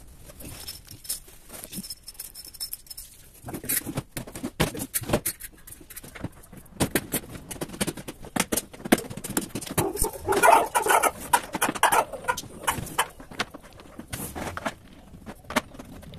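Plastic pet transport crates being handled and assembled: irregular clicks, knocks and plastic rattles. A denser, louder stretch of scraping and handling comes about ten seconds in.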